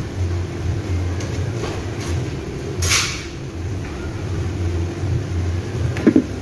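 A small socket wrench working the timing chain tensioner bolt on a Suzuki New Carry engine: light metallic clicks, a short scrape about halfway through and a couple of sharper clicks near the end, over a steady low hum.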